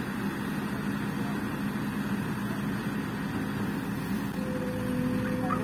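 Tracked excavator's diesel engine running steadily while it handles a portable cabin slung by chains from its bucket. A faint higher steady tone joins about four and a half seconds in.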